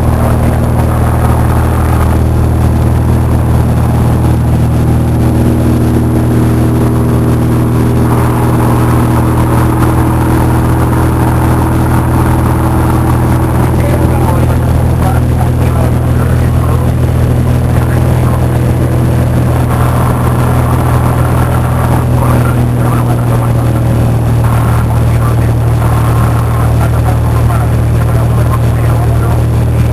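Cessna 172's piston engine and propeller running in a steady, unchanging drone, as in cruise or climb.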